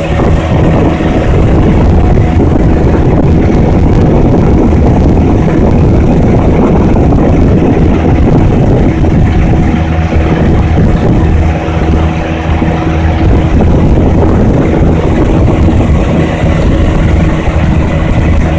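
Outboard motor of a small fishing boat running steadily under way, a constant engine hum, with wind buffeting the microphone.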